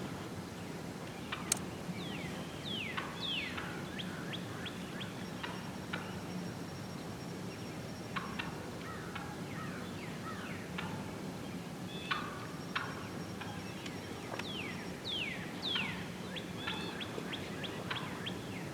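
Wild turkeys calling in a flock, with bouts of gobbling that come in clusters, two of them louder, about three seconds in and again near the end.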